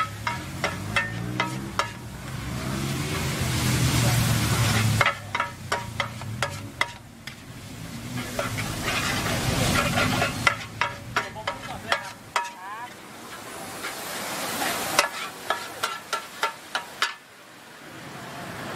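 Two metal spatulas scraping and clacking against a large flat steel pan as noodles are stir-fried, over a steady sizzle. The clacks come in four quick runs of about three or four a second. A low hum swells and fades twice in the background during the first half.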